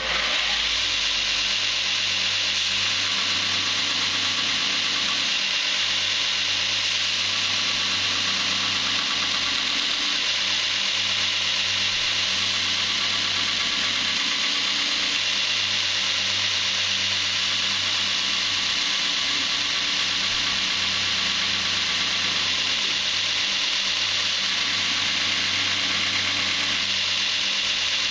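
Belt grinder running with a piece of D2 tool steel held against the abrasive belt: a steady grinding hiss over the motor's hum.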